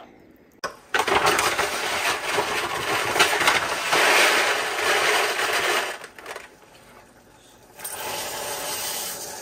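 Dry jasmine rice poured out of its plastic bag into a measuring cup, a dense rattling rustle lasting about five seconds, then after a short pause the rice poured from the cup into a pot of water, more softly.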